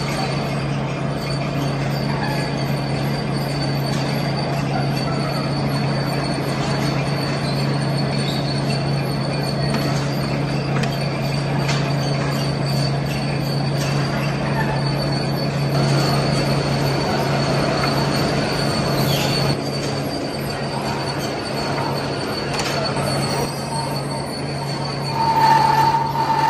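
Old Webster & Bennett (W&B) vertical turret lathe running, its tool cutting into a metal pulley blank: a steady machine hum with a thin high whine over it. A brief louder squeal comes near the end.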